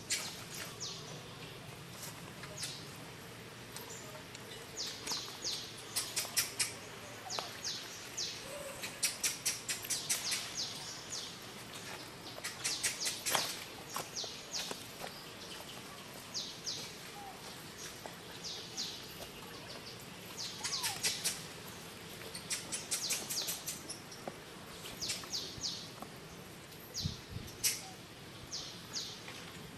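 Birds chirping: quick runs of three to six short, high notes, repeated every second or two.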